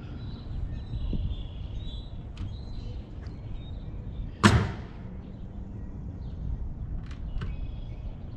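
Low wind rumble with a few faint taps, and one loud, sharp knock about four and a half seconds in, from work on a wooden barn frame.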